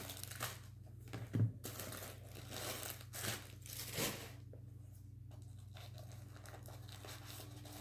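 Crinkling and rustling of white paper stuffing being pulled out of a new leather espadrille, in uneven bursts that die away after about four seconds, leaving a faint low hum.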